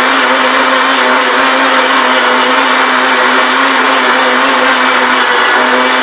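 Blendtec blender running loud and steady with a constant hum, blending rolled oats, eggs and applesauce into a thick muffin batter.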